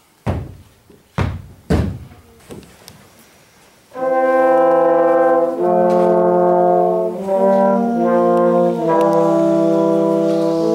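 Three heavy booming thumps in the first two seconds, then a few softer ones. About four seconds in, brass instruments come in playing slow, held chords that change every second or two.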